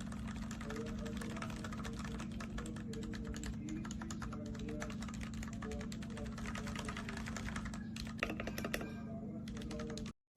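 Typing on a mechanical keyboard fitted with Royal Kludge switches: a fast, uneven run of key clacks, with a few louder strikes near the end.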